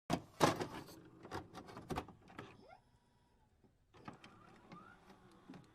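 A run of sharp clicks and knocks starting abruptly, loudest in the first second and a half, then a quiet gap near the middle and fainter clicks after it.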